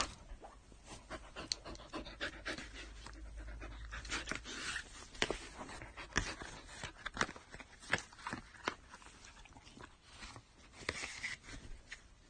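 A dog panting, with irregular short clicks and knocks scattered through it.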